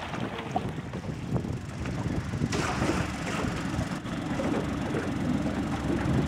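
Boat outboard motor running at low speed, a steady low rumble that grows a little louder over the few seconds.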